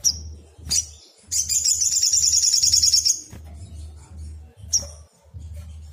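Sunbird calling: a few sharp, high single notes, and near the start a loud, rapid trill of evenly repeated notes lasting about two seconds.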